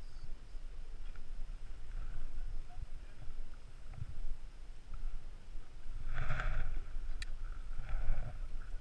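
Low, uneven rumble of wind and handling noise on a body-worn camera's microphone as a climber moves over rock on a fixed rope, with scattered faint knocks of gear. A sharp click about seven seconds in, and two brief louder noises about six and eight seconds in.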